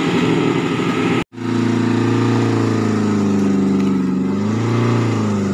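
A Suzuki Katana (Jimny) 4x4's engine pulling at low speed on a rough trail. The dense engine sound breaks off abruptly about a second in, and a steadier engine note with a clear pitch follows, sagging briefly and recovering near the end.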